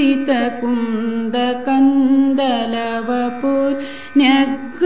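Sanskrit devotional hymn sung as a melodic chant: a voice draws out and bends its notes in a flowing line.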